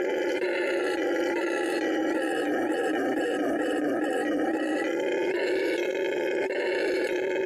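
Howler monkey howling in one long, unbroken call that does not stop for breath, the howler's deep roar made through its enlarged larynx and hyoid bone.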